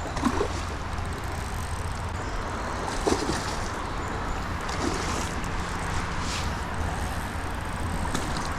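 Steady rush of moving river water with a low wind rumble on the microphone, and a few soft knocks or splashes scattered through it.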